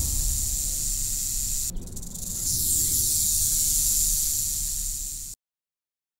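A snake's steady, high hissing warning sound over a low rumble. It dips briefly about two seconds in and cuts off suddenly near the end.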